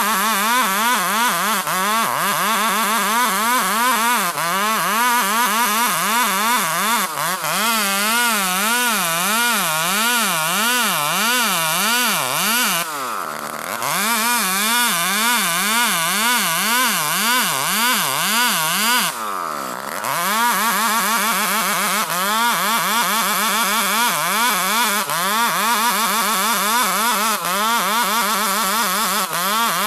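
Two-stroke chainsaw at full throttle, ripping a Borneo ironwood (ulin) log lengthwise; the engine pitch wavers up and down steadily, about one and a half times a second, under the load of the cut. Twice, about halfway through and again a few seconds later, the engine speed drops sharply for a moment and then climbs back up.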